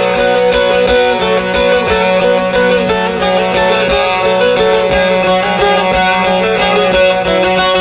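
Instrumental interlude of a Turkish folk song: a plucked string instrument plays the melody over a steady held low note.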